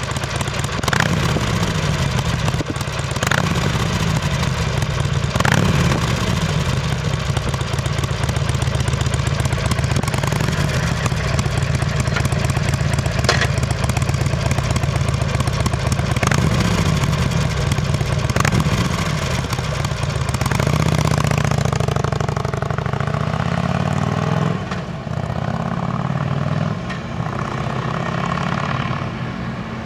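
2007 Harley-Davidson Sportster's air-cooled V-twin idling through its chrome exhaust and revved several times. About twenty seconds in, the bike pulls away, accelerating up through the gears with rising and dropping engine pitch as it moves off.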